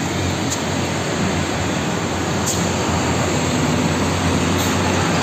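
Steady road traffic noise of concrete mixer trucks and motorcycles driving past, an even hiss over a low engine drone.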